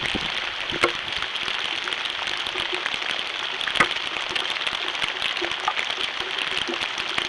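Steady rain falling, with drops pattering and ticking, and two sharper, louder drop hits about one second in and about four seconds in.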